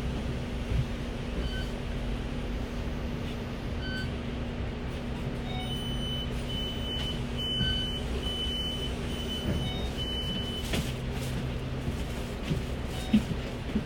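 Inside a moving or idling city bus: the engine and drivetrain give a steady low hum throughout. A run of short, high electronic beeps repeats for about five seconds in the middle.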